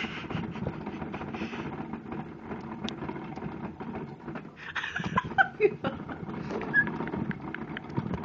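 Gerbil running in an orange plastic exercise wheel: the wheel spins with a steady rumble and rattle, broken by many irregular clicks and knocks.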